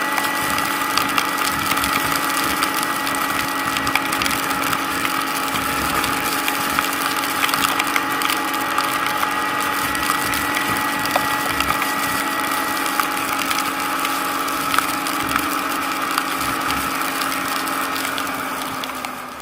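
ATV engine running at a steady speed, with a dense crackling and crunching over it. The sound fades out at the very end.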